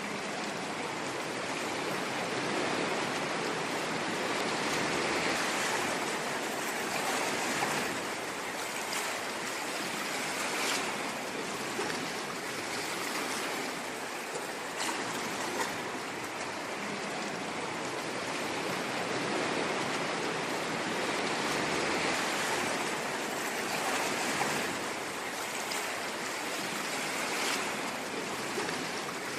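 Ocean waves washing in as a steady surf noise, slowly swelling and easing every several seconds.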